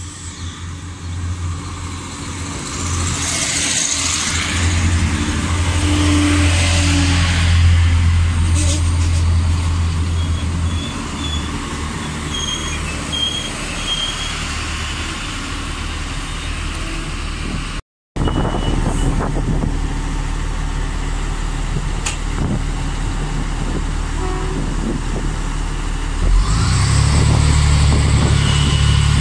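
Irish Rail 29000 Class diesel multiple unit running in and slowing to a stop at the platform, its underfloor diesel engines humming, with a few short high squeals as it brakes. After a brief cut the engines idle, then rev up sharply near the end.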